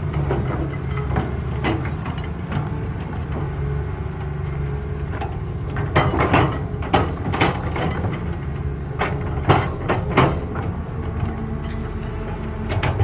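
Heavy diesel engine of a Caterpillar excavator running steadily under load. Over it, a cluster of sharp knocks and clatters comes about six seconds in and another around nine to ten seconds in.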